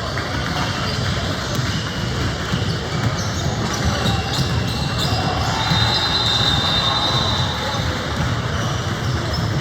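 Basketball game in a gym: a ball bouncing on the court amid steady crowd chatter.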